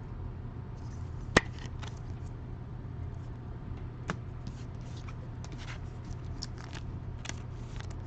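Trading cards being handled and sorted, making short papery rustles and slides. A sharp tap comes about a second and a half in and a lighter one around four seconds, over a steady low hum.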